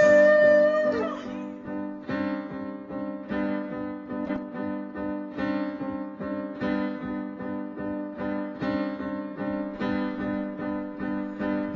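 Slowed-down acoustic song between vocal lines: a held sung note fades in the first second, then a plucked string instrument plays a steady repeating pattern over a held low note.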